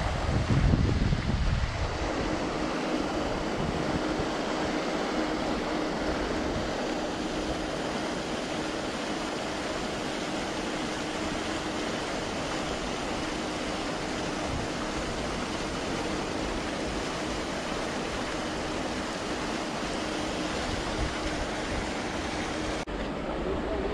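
Steady outdoor hiss like rushing water, with a faint steady hum underneath. Wind buffets the microphone for the first couple of seconds, and the sound changes abruptly about a second before the end.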